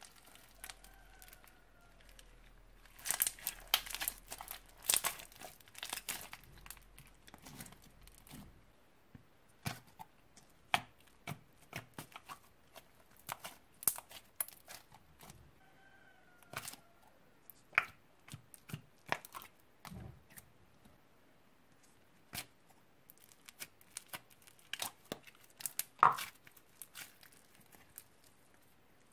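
Hands mixing and stretching old slime: sticky pops, clicks and crackles in irregular runs, thickest about three seconds in and again near the end.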